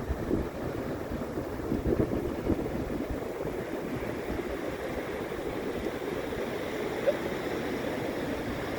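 Wind buffeting the microphone in gusts over the steady rush of large breaking surf; the gusty rumble is strongest in the first few seconds and the wave hiss grows after that. One short, sharp sound about seven seconds in.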